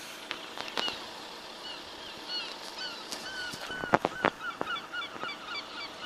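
Birds calling over and over in short honking notes, coming thicker in the second half, with a few sharp knocks, the loudest about four seconds in.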